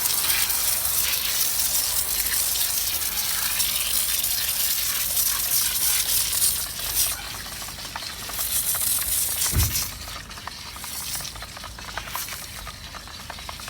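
Snow foam sprayed onto a car wheel from a garden-hose foam gun: a steady hiss of spray that drops to a quieter, patchy hiss with short spurts about seven seconds in.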